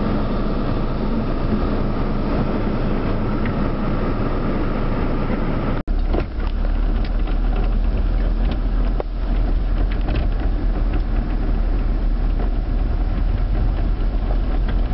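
Inside a car driving on a wet, flooded road: steady engine and tyre rumble with scattered ticks. The sound cuts out for an instant about six seconds in, and the low rumble is heavier after it.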